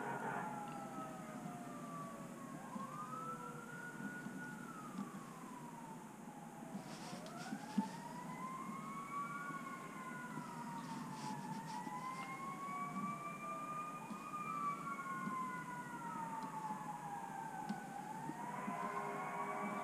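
Emergency vehicle sirens wailing, more than one at once, each slowly rising and falling over a few seconds. A single sharp click about eight seconds in.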